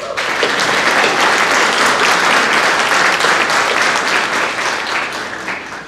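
Audience applauding, starting suddenly at full strength and dying away near the end.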